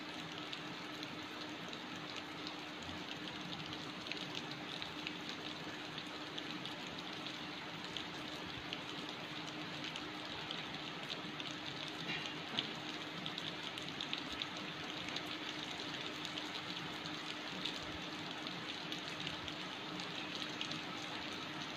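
Steady rain falling, a constant hiss dotted with many small drop ticks on surfaces. A faint steady low hum sits underneath.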